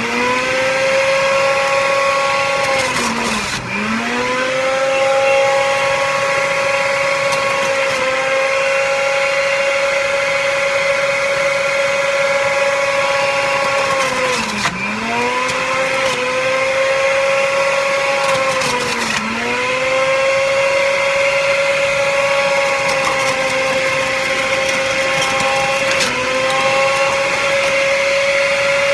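Centrifugal juicer motor running on its high setting with a steady whine. Its pitch sags briefly about five times and recovers, as fruit pushed down the chute loads the spinning blade basket.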